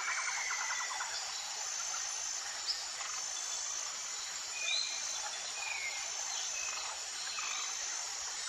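Outdoor nature ambience: a steady insect hiss with a thin, high trill repeating about once a second, and a few short bird chirps, one rising about halfway through.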